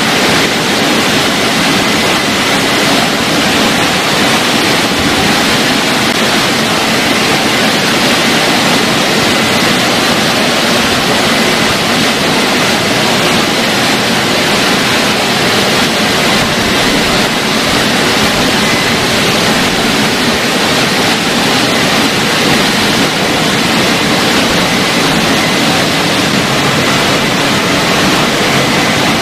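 WashTec rollover car wash dryer, its big blowers running and blasting air over the car in a steady loud rush, with a faint high whine in the first part.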